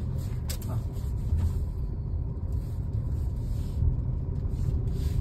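Steady low rumble of a small Suzuki car's engine and tyres, heard from inside the cabin as it drives through a bend.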